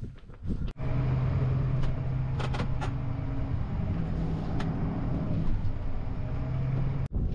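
New Holland T7 tractor engine running steadily as it drives along a farm track towing a spreader, heard from inside the cab, with a few short knocks and rattles over the drone.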